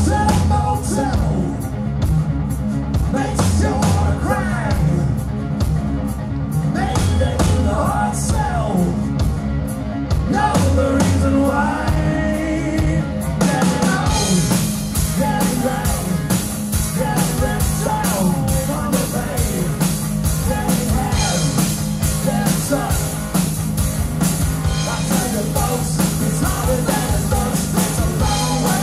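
Live rock band playing: electric guitar, bass guitar and drum kit, with a male voice singing. About halfway through the band's sound fills out and grows brighter.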